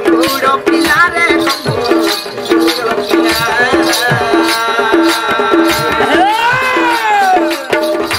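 Sambalpuri danda nacha folk song: male voices singing into microphones over a steady beat of about two strokes a second with percussion. About six seconds in, a long note slides up and back down.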